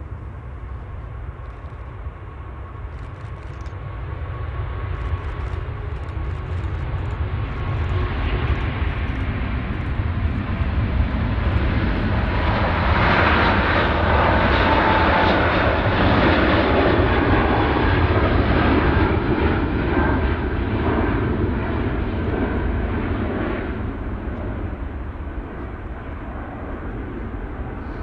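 Airbus A380's four jet engines as the airliner rolls past on the runway, a rumble that builds to a loud peak around the middle and then fades away.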